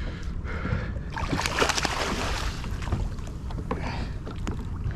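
Water splashing as a hooked gummy shark thrashes at the side of a small boat while it is landed, heaviest from about one to two and a half seconds in, over a steady rumble of wind on the microphone.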